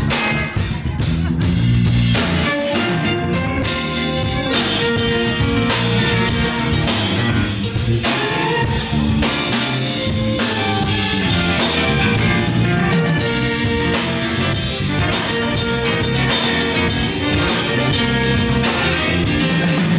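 A live band playing an up-tempo number: electric guitar over congas and a steady rhythm of percussion strikes, with keyboard, violin and upright bass in the mix.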